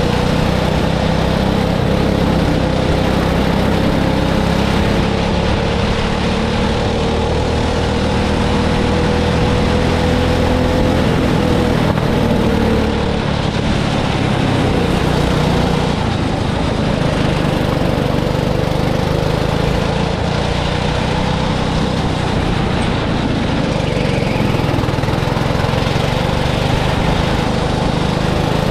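Go-kart's small engine running continuously, its pitch climbing slowly as it gathers speed, then dropping and climbing again several times.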